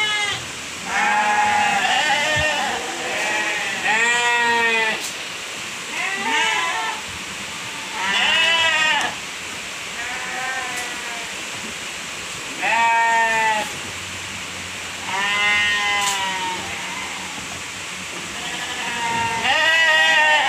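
Sheep bleating, several animals calling in turn, about ten bleats spaced a second or two apart.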